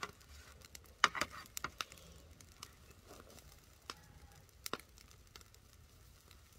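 Fish grilling over a fire, giving irregular sharp crackles and pops about a dozen times, the loudest about a second in, over a faint low hum.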